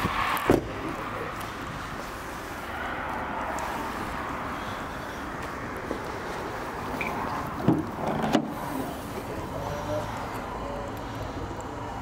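An Audi A1's bonnet being released and lifted: a clunk and then a sharp latch click about eight seconds in, with a single knock near the start, over steady background noise.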